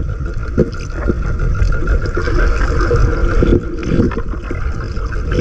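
Small fishing boat's engine running steadily under way, with a low rumble and wind buffeting the microphone.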